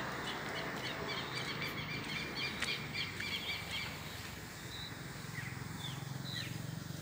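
Birds chirping: a quick run of repeated high chirps for about three seconds, then a few single calls, over a low steady hum of outdoor background noise.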